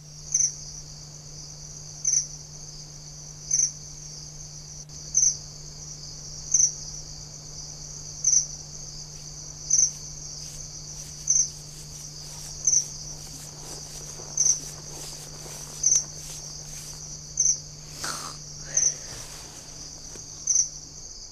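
Cricket chirping, laid on as a sound effect: a steady high trill with a louder chirp about every one and a half seconds, over a faint steady low hum.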